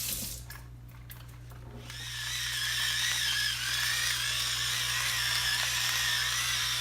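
Electric pepper grinder's small motor running with a steady, slightly wavering whine as it grinds peppercorns, starting about two seconds in.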